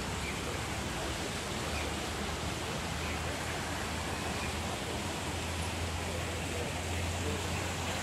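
Steady rushing of water falling from an artificial rockery waterfall, an even hiss with a low rumble underneath.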